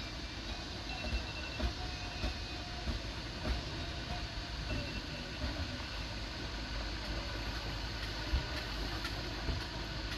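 Steady low rumbling noise, even throughout, with no clear single event.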